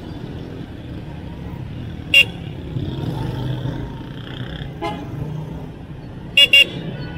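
A 70cc motorcycle's electric horn beeps in short toots: once about two seconds in, faintly again near five seconds, and twice in quick succession near the end. Under them the small single-cylinder engine of the DYL Dhoom YD 70 runs steadily while riding.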